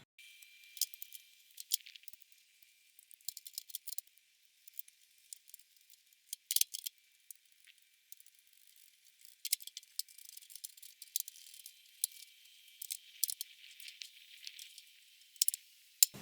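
Faint, scattered metal clicks, clinks and small rattles of hardware being handled and fitted as a fire extinguisher mount is fastened onto the toolbox. The sound is thin, with only the upper range present.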